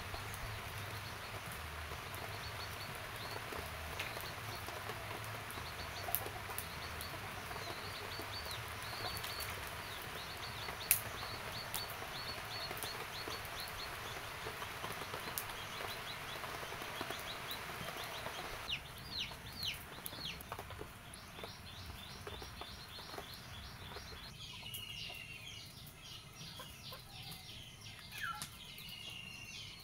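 Chickens clucking, with small birds chirping in short repeated high notes. A steady background hiss fills the first part and drops away about two-thirds of the way through.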